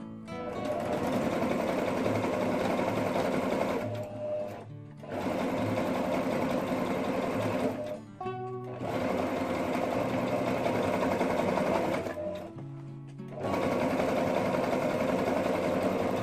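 Electric household sewing machine stitching leather patchwork pieces together in long steady runs, stopping briefly three times, about 4, 8 and 12 seconds in. Acoustic guitar music plays underneath.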